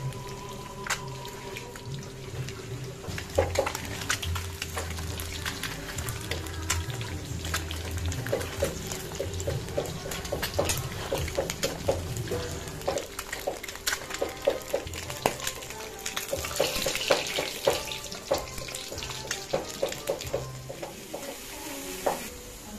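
Boiled eggs sizzling and popping in hot ghee in a kadai, with a metal spatula scraping and knocking against the pan as they are turned.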